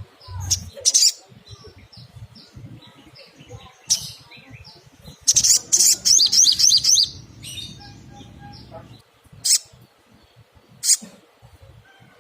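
Little spiderhunter (sogok ontong) calling: loud, sharp single high notes spaced a few seconds apart. Near the middle comes a quick run of about ten rising notes lasting a second and a half.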